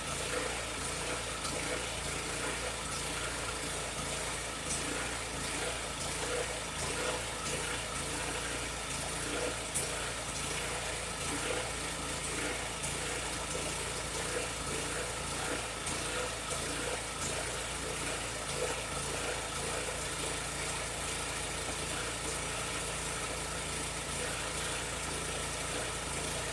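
Champion 100519 open-frame inverter generator running steadily with its fuel valve shut, burning off the last fuel in the carburetor as it starts to run out.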